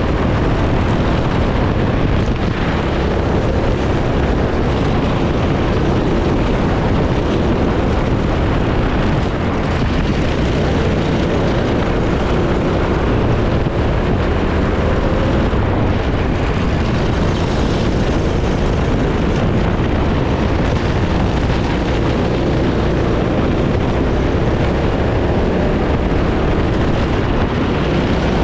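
Racing kart engine running hard on track, its pitch wavering up and down, under a constant rush of wind and road noise on the onboard microphone.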